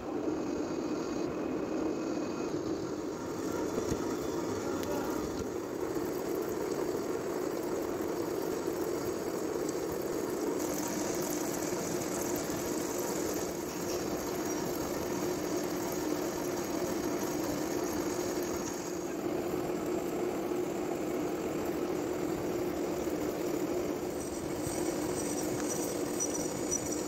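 Heavy-duty metal lathe running steadily under load with a low hum, its turning tool cutting a metal gear blank under flood coolant. A thin high tone from the cut comes in about ten seconds in, drops out near twenty seconds, and returns near the end.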